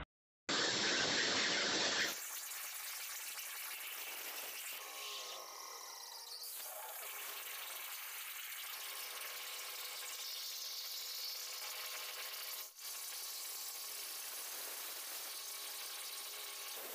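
CNC plasma cutter torch cutting discs out of steel plate: a steady, high hiss with a faint whine. A short gap and a louder stretch of about a second and a half come first, and the hiss dips briefly about two-thirds of the way through.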